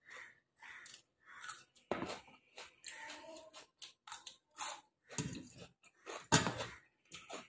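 A person chewing and eating close to the microphone: a run of short, irregular mouth clicks and noises, with one louder, deeper burst a little over six seconds in.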